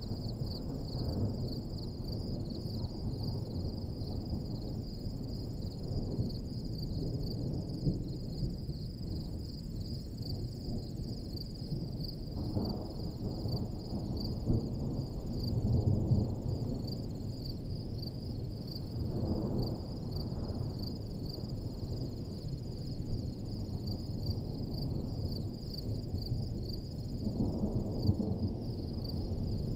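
Steady, high, finely pulsing chirring of field insects over a low rumble that swells a few times, strongest about halfway through and near the end.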